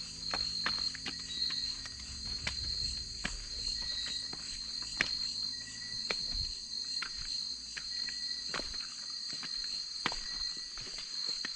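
Night chorus of crickets and other insects chirring steadily and high-pitched, with scattered sharp clicks and knocks throughout. A low rumble fades out about halfway through.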